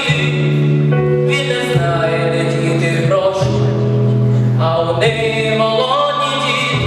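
A song performed: singing over instrumental backing, with held low bass notes that change every second or two.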